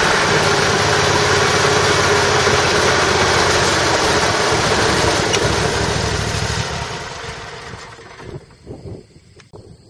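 2005 Exmark 72-inch Lazer Z zero-turn mower's Kohler Command 27 hp V-twin engine running steadily, then dying away about seven seconds in, followed by a few faint knocks.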